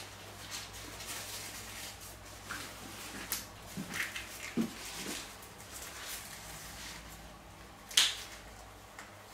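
Hair-cutting scissors snipping through dry hair in short scattered cuts, with a sharper snip about eight seconds in.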